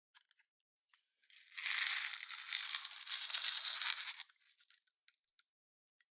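Clear slime being squished and worked by hand: a dense wet crackling of small pops for about three seconds, with scattered clicks before and after.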